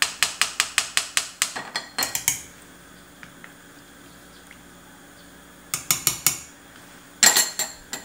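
Metal spoon clinking against the sides of a stainless steel pot as soybean paste (doenjang) is stirred into broth. A quick, even run of clinks comes first, then a pause, then two shorter bursts, the last the loudest.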